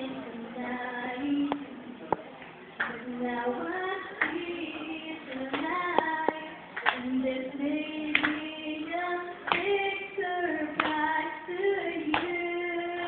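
A woman singing into a handheld microphone, holding long, slightly wavering notes, with scattered sharp claps throughout.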